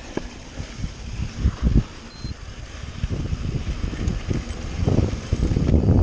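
Mountain bike rolling fast down a rocky dirt trail: wind buffeting the microphone, with the tyres rumbling and the bike rattling over rough ground, growing louder near the end.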